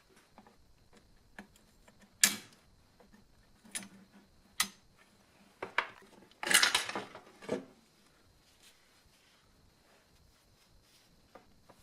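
Metal parts and hand tools clinking and knocking: a few separate knocks over the first six seconds, then a short rattling clatter about six and a half seconds in, followed by a few quiet seconds.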